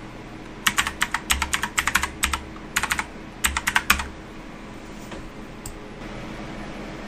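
Computer keyboard typing: a quick run of keystrokes in short groups for about three and a half seconds, as an IP address is entered. One light click follows a couple of seconds later.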